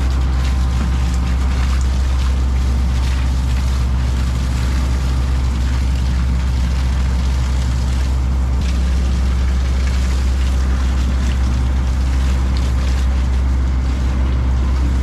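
Fishing boat's engine running steadily in a deep, constant drone, with a hiss of wind and water over it.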